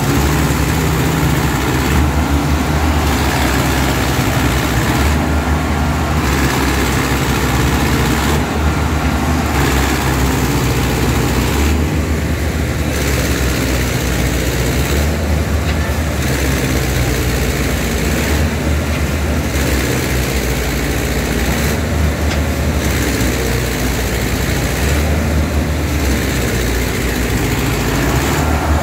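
Diesel engines of a Mahindra Arjun 605 tractor and a second tractor coupled ahead of it, running loud and steady under heavy load as they pull a full sugarcane trailer through deep mud.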